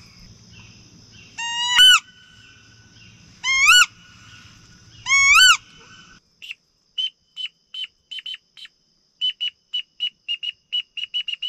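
Three loud rising squeals about a second and a half apart, each ending in a sharp upward sweep, like a wood duck's "oo-eek" call. Then the background hiss drops out and a quick, irregular run of short high peeping whistles follows.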